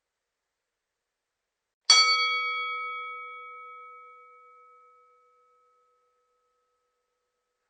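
Boxing bell struck once, about two seconds in: a single sharp ding that rings on and fades away over several seconds.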